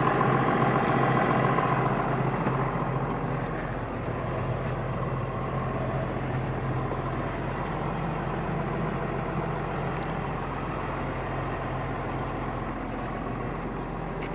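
A John Deere 6910 tractor's six-cylinder turbo diesel engine idling steadily, heard from inside the cab.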